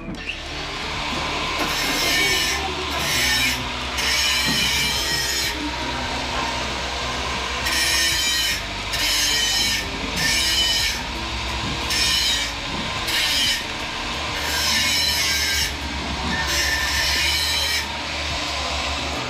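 Repeated rasping strokes of a hand tool working a surface, each about a second long with short pauses between, over a steady low hum.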